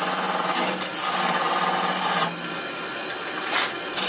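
A turning tool cutting a wooden ball spinning on a wood lathe: a loud hissing, scraping cut in two passes, broken briefly just under a second in, over the lathe's steady motor hum. The cut stops a little past two seconds in, leaving the lathe running on its own.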